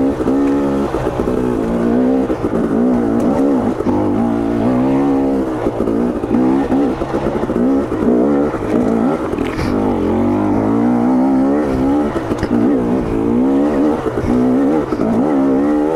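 2022 KTM 250 XC's two-stroke engine revving up and down over and over as the dirt bike is ridden, the pitch rising and falling every second or two as the throttle is opened and shut. Its power valve is freshly tuned and it is running the way the rider wants.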